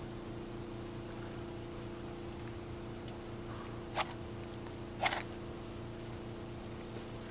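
Insects chirping, a high pulsing note about twice a second. Two short sharp strikes about four and five seconds in, a match being struck and flaring.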